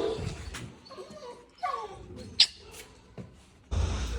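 Pet dogs whining: a couple of falling whimpers a little past halfway and a short, sharp high yelp. A low rumble starts near the end.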